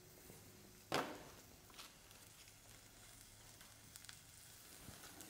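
Diced mirepoix of celery, carrot and onion frying in a little oil in a saucepan, a faint steady sizzle. One sharp knock about a second in and a few light ticks later.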